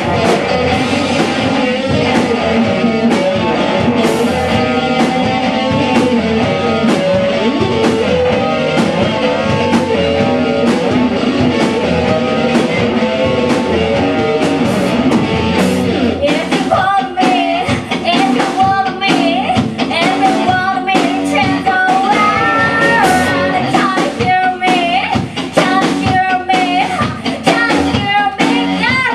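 Rock band music with electric guitar, drums and singing, the drums keeping a steady beat. About halfway through the sound thins a little and a wavering lead melody stands out on top.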